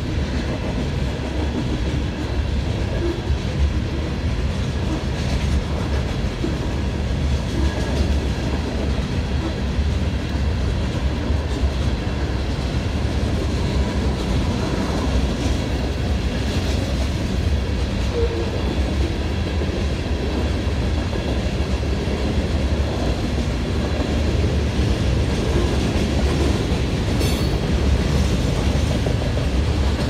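Freight cars of a coal train rolling steadily past a grade crossing: a continuous rumble with wheels clacking over the rail joints.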